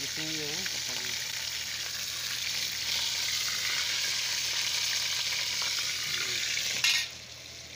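A whole chicken deep-frying in hot oil in an aluminium pot, a steady sizzle while the bird is lifted and turned in the oil. About seven seconds in there is a short knock, and the sizzle then drops off abruptly.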